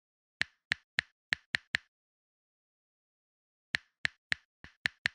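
Typing sound effect: sharp single key clicks in two runs of six, about three to four a second, with a dead-silent pause of about two seconds between the runs.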